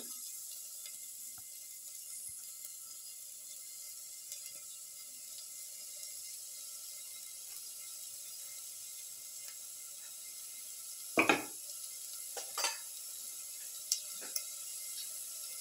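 Sliced onions and shallots sizzling faintly in hot oil in a steel pan, a steady soft hiss. Two brief knocks of utensil or pan are heard about eleven and twelve and a half seconds in, with a few light clicks after.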